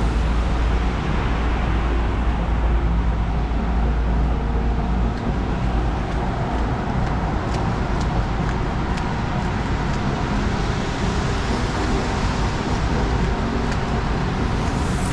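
Steady road traffic noise: motor vehicles running along a busy roadway with a constant low rumble.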